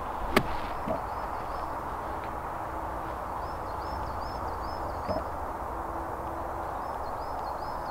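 Birds calling over a steady outdoor background: short, repeated high chirping phrases, twice, and a faint low drawn-out call in the middle. A single sharp tick sounds about half a second in.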